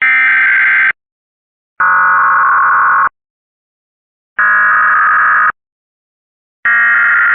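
Four one-second bursts of buzzy electronic data tones with about a second of silence between each: the SAME digital header of an Emergency Alert System alert, which encodes the event, area and timing ahead of the attention signal. Each burst sits at a slightly different pitch.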